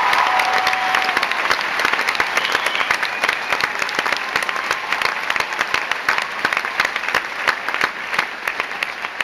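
Theatre audience and cast applauding: dense clapping from many hands that slowly dies down.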